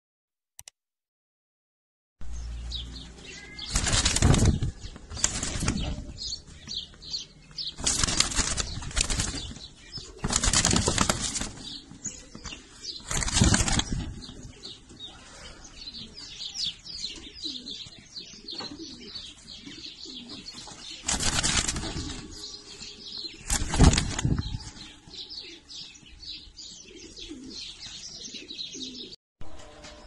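Ground roller pigeon's wings flapping in about eight loud short bursts, starting about two seconds in, with faint bird chirps between the bursts.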